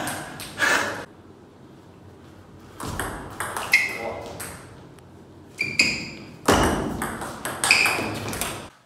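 Table tennis rally: the ball cracks off the paddles and bounces on the table with sharp, ringing ticks, several hits about half a second apart.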